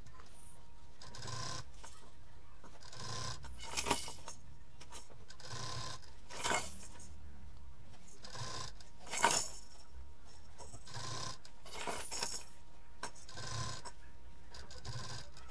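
Fabric handling at a sewing machine: the quilted pillow being shifted and pushed, with its attached plastic teething toys and rattles clinking and clacking now and then, the sharpest clacks about 4, 6.5 and 9 seconds in.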